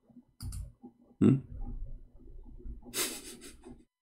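A man's breathing and mouth sounds close to the microphone: a short low grunt about a second in and a hissing breath out near three seconds.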